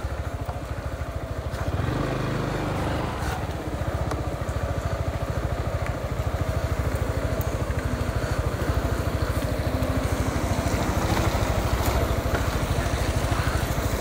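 A vehicle's engine idling while stopped, with a steady, rapid pulsing beat.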